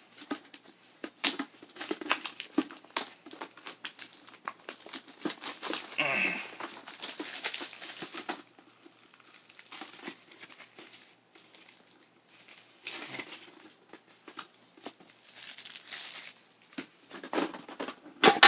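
Plastic wrapping crinkling and tearing as a Pokémon card tin is unwrapped and opened, with scattered clicks and taps from handling it.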